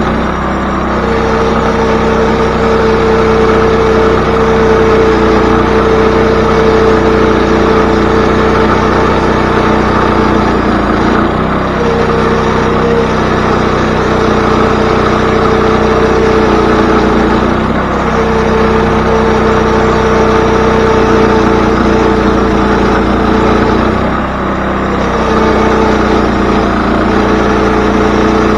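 Wood-Mizer portable band sawmill running under its engine, a loud, steady drone whose pitch dips briefly three times, about 11, 18 and 24 seconds in.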